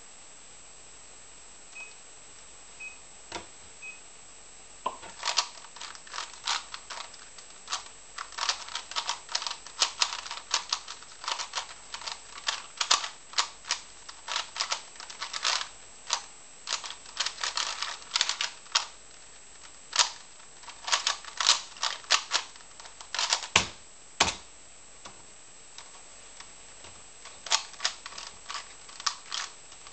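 Three short beeps, then a 3x3 Rubik's cube turned rapidly in a speedsolve: a fast, irregular run of plastic clicks and clacks for about twenty seconds. A heavier thump comes near the end of the turning, followed by a few scattered clicks.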